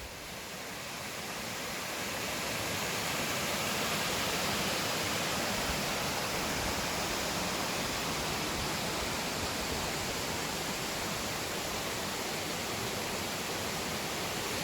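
A small waterfall and creek rushing: a steady hiss of falling water that grows louder over the first few seconds, then holds.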